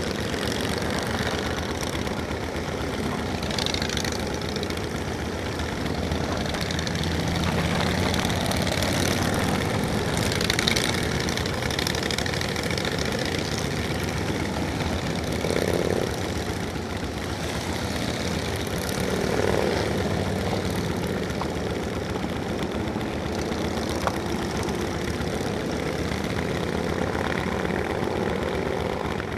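Motorcycle running steadily while riding, its engine note under a continuous rush of road noise, with a few brief swells.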